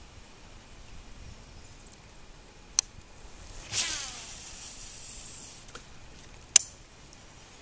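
A cast with a fishing rod and reel: a click, then line whizzing off the spool with a whir that falls in pitch as it slows, and a sharp click near the end as the reel is engaged.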